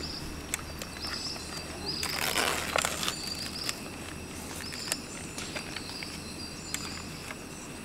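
A small bird or insect repeating a short high chirp roughly once a second, over scattered light clicks and a brief rustle of a spoon working in a plastic container of hot rice.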